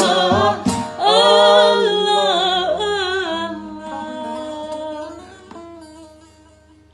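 A singer's voice closes an Arabic folk-song refrain on a long held note with vibrato, which fades out toward the end.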